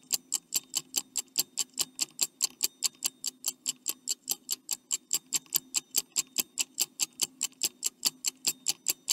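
Stopwatch ticking sound effect: rapid, even ticks, about five a second, over a faint low hum, counting down the thinking time for a quiz question.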